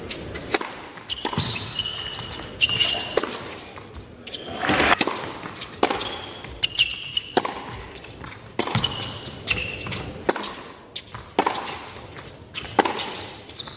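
Tennis rally on an indoor hard court: rackets striking the ball and the ball bouncing, about once a second, with short high squeaks of shoes on the court between strokes.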